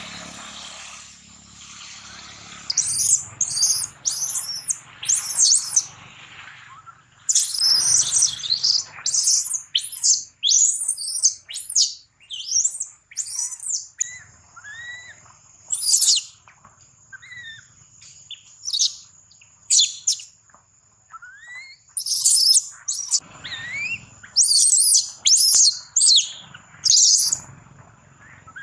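Baby macaque screaming in distress: loud, short, high-pitched squeals in quick runs of several, beginning about three seconds in and going on in bursts with short gaps.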